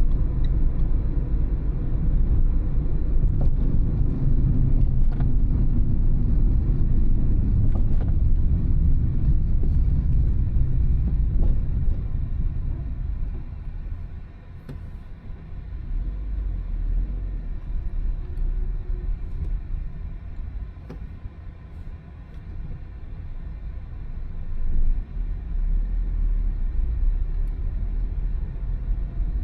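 Car driving on town roads: a low engine and road rumble that eases off about halfway through, as the car slows, then builds again near the end.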